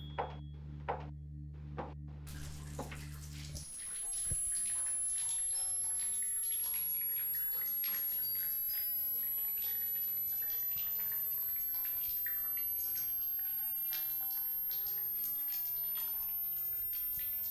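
Footsteps clicking on a hard floor at a walking pace, about one a second, over a low hum. A few seconds in, a steady rush of running water with dripping and crackling takes over, under a faint high tone that slowly rises.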